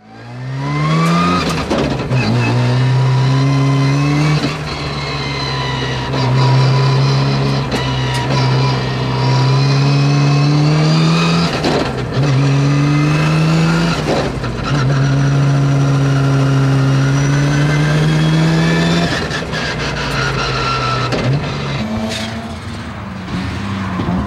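Mazda RX-7 FD with a 20B three-rotor twin-turbo rotary engine accelerating hard, heard from inside the cockpit: the engine pitch climbs in each gear and drops sharply at each of several upshifts. Near the end the pitch falls as it lifts off and slows.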